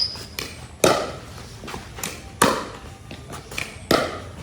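Pickleball rally: sharp knocks of paddles hitting the plastic ball, a loud hit about every one and a half seconds, with softer taps in between.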